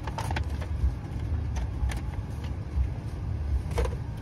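Car engine idling, a steady low rumble heard from inside the cabin, with a few light clicks.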